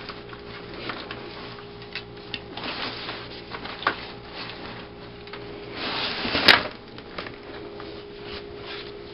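Inglesina Avio stroller frame being handled, giving scattered clicks and knocks, with one sharp click about six and a half seconds in, over a faint steady hum.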